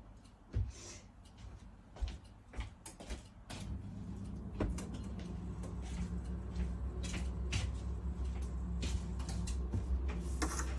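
A few knocks and clicks, then about three and a half seconds in a Breville Bijou espresso machine starts a steady low hum that keeps going. The owner takes its long run without a coffee as a sign that something is wrong with the machine.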